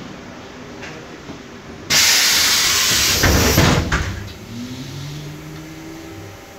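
Pneumatic passenger doors of a MAN Lion's Classic bus converted to electric drive: a loud burst of air hiss, described as noisy, starts about two seconds in and lasts about two seconds, with a few knocks from the door mechanism just before it stops. A faint rising whine follows.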